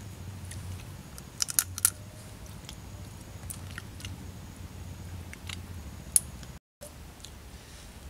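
Boiled mud crab shell being cracked and picked apart by hand: sharp crackling clicks, a quick run of several about a second and a half in, then single cracks now and then, over a low steady hum.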